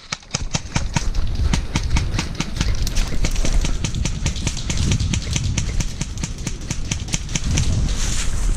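Footsteps crunching through dry leaves and brush: many irregular crackles, over a low rumble of movement on the microphone.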